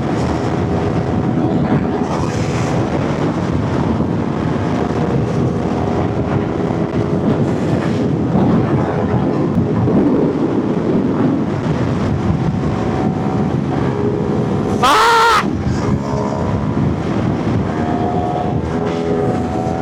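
Motorcycle engines running on the move with wind rushing over the helmet microphone, the engine note shifting as the throttle opens and closes. About fifteen seconds in, a brief loud high-pitched blare with a rising pitch cuts through for under a second.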